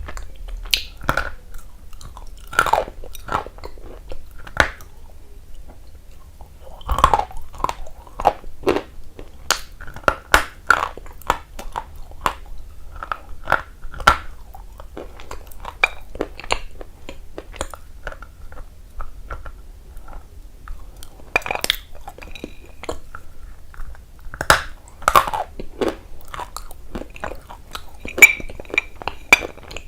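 A person biting and chewing something dry and crunchy close to the microphone: sharp, irregular crunches that come in clusters.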